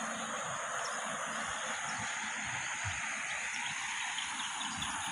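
Rural roadside ambience: a steady high insect drone with a few faint bird chirps, over an even rush of noise and irregular low rumbles on the microphone.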